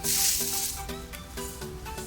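Background music with a steady beat, opening with a loud hissing burst that lasts under a second.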